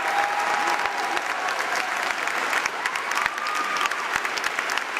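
Large crowd applauding: dense, steady clapping from many hands.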